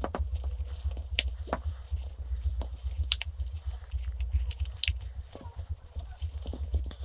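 Leatherette ear seal being stretched by hand onto the plastic ear cup of a David Clark ONE-X headset: irregular rubbing, creaking and sharp little clicks as the seal is worked over the cup's lip, over a steady low rumble.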